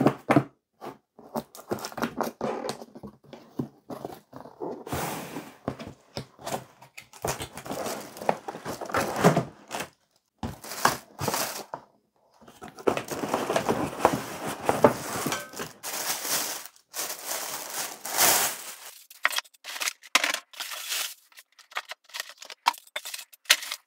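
Cardboard box flaps being lifted and folded open, then a frying pan's plastic bag crinkling as the pan is pulled out of it, with scattered rustles, scrapes and light knocks.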